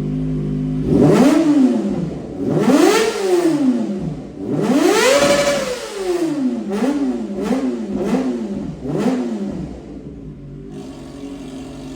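Motorcycle engine revved at a standstill through its exhaust: three revs that rise and fall, the third the longest and highest, then five quick blips of the throttle before it drops back to a steady idle near the end.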